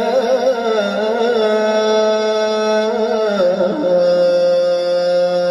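Quran recitation in the melodic chanting style: a single reciter's voice draws out an ornamented, wavering note, then dips in pitch about three and a half seconds in and holds one long steady note.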